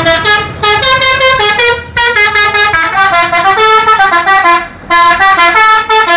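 Bus's multi-tone musical 'telolet' horn playing a quick tune of stepped notes in loud phrases, with short breaks about two seconds in and near five seconds.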